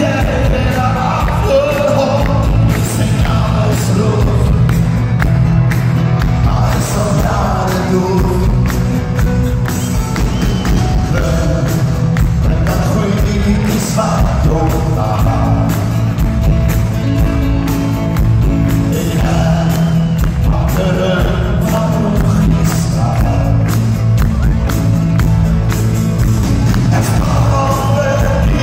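Live Afrikaans pop song: male voices singing into microphones over a full band with bass and drums, amplified loud through the hall's PA.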